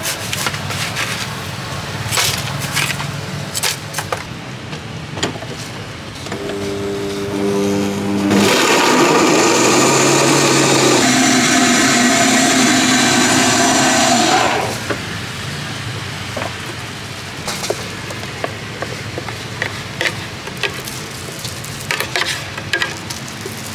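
Electric blender mixing a fruit shake: the motor starts with a low hum about six seconds in, then runs loudly for about six seconds, its pitch shifting partway through, and cuts off. Scattered clicks and knocks come before and after.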